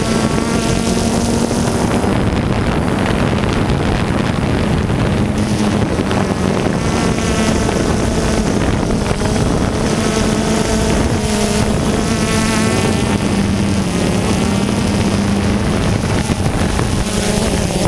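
Motor and rotors of a radio-controlled aircraft, heard from its onboard camera. It runs steadily with a wavering pitch as it hovers and comes down to land, with wind on the microphone.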